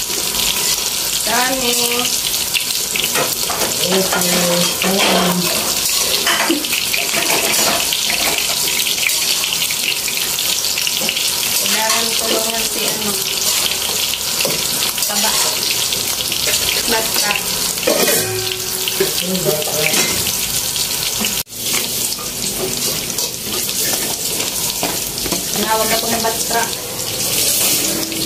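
Steady sizzling hiss of pancit (noodles, cabbage and carrots) stir-frying in a wok as it is tossed.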